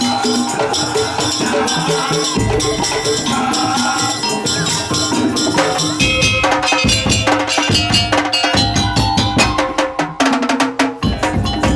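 Madurese daul (tong-tong) music: a traditional percussion ensemble of wooden slit drums, drums and shakers playing a fast, busy beat over a sustained melody line. The percussion strikes grow denser about halfway through.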